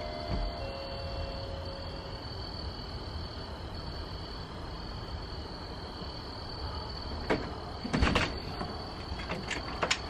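Crickets chirping steadily over a low background rumble. About seven and eight seconds in come a few sharp knocks and clatters from a door being handled.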